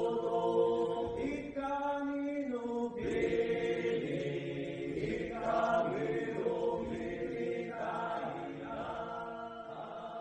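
A group of voices chanting together in long held, layered notes, in the manner of Bunun traditional song chant, the chords shifting every second or two and growing quieter toward the end.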